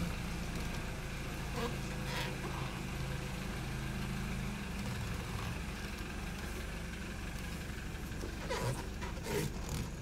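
2013 BMW X3's engine running at low revs, heard from inside the cabin as a steady low hum while the car backs out slowly; the engine runs smoothly now that a missing charge air cooler has been replaced. A few faint short noises come around two seconds in and near the end.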